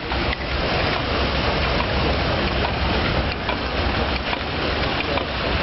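Houston Stanwood & Gamble stationary steam engine running steadily: a continuous mechanical noise with a low hum and light ticks here and there.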